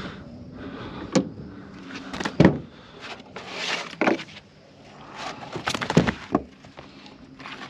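Knocks and thumps as a barramundi is landed and handled in the boat, with a short rush of splashing water about three and a half seconds in. The loudest thumps come about two and a half and six seconds in.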